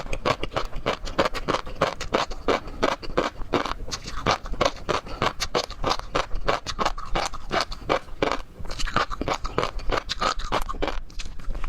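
Close-up eating sounds of seafood being chewed: a rapid, continuous run of crisp crunches and wet clicks.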